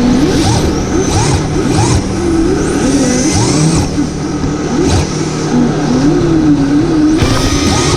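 Radio-controlled drift car's electric motor whining and revving, its pitch wavering up and down as the throttle is worked.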